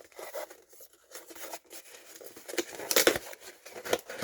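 A mailed package being opened by hand: packaging tearing and rustling, with scattered clicks and a louder tearing burst a little before three seconds in.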